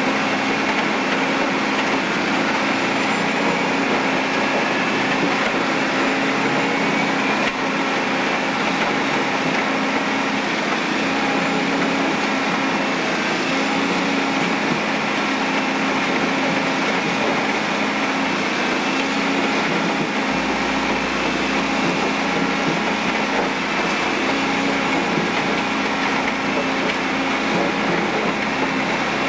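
Badger B-2060-S shredder running steadily while it grinds asphalt: a constant machine drone with a steady hum and hiss. A deeper low hum joins about two-thirds of the way through.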